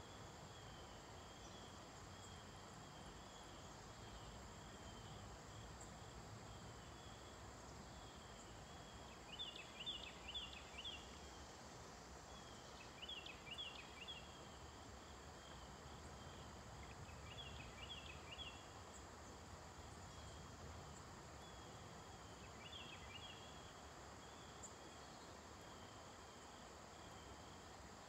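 Faint crickets trilling steadily, with four short louder bursts of rapid chirping, over a soft outdoor background hiss.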